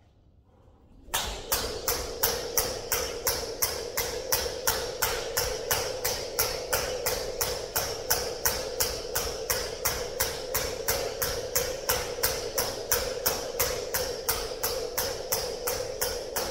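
Half-pound weighted jump rope slapping the floor on each turn as someone skips, a steady rhythm of about three strokes a second that starts about a second in.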